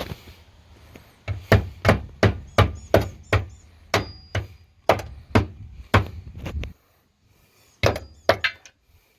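A string of sharp, hard knocks, about two to three a second for some five seconds, then a pause and two more, with a faint metallic ring after some blows: striking the leftover broken bumper brackets to knock them off the car's rear.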